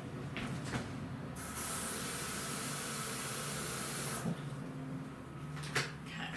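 Water running into a mason jar of pickle spears, topping up the vinegar brine: a steady hiss that starts about a second and a half in and stops after about three seconds.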